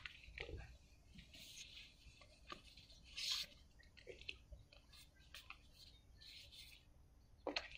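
Faint rustling and sliding of thin printed card painting pieces as they are handled and shuffled by hand. There is a louder scrape about three seconds in and a pair of sharp clicks near the end.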